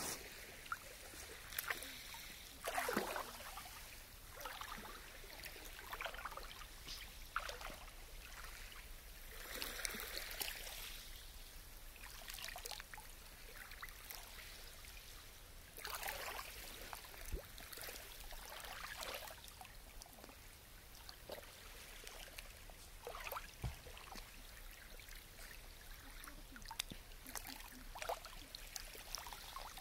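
Water trickling and pouring as a clear bottle is dipped into calm, shallow lake water and emptied back out, in several short bouts of splashing and dribbling.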